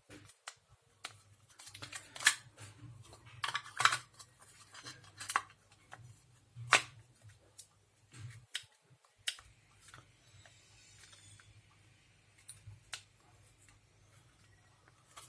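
Irregular hard plastic clicks and knocks as a cordless drill battery pack is handled and test-fitted into its housing, over a faint low hum.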